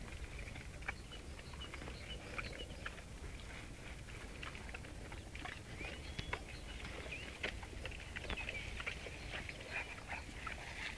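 Great Danes tearing and chewing grass, an irregular run of crisp crunching clicks and snuffles.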